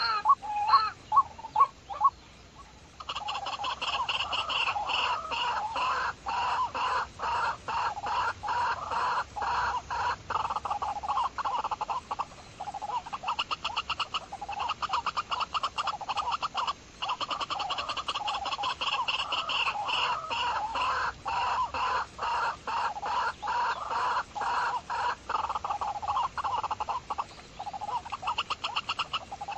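Animal calls: a few separate pulsed calls, then about three seconds in a dense, rapidly pulsing chorus takes over and keeps going with brief gaps.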